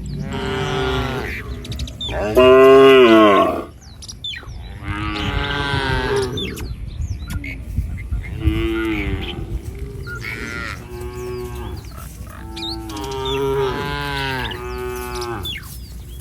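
A herd of cattle mooing: a run of about eight long moos, one after another and some overlapping. The loudest moo comes about two and a half seconds in.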